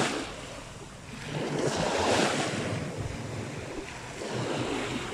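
Small sea waves breaking and washing up the shore, the surge swelling loudest about two seconds in and again near the end.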